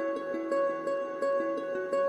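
Background music: short notes repeating several times a second over held tones.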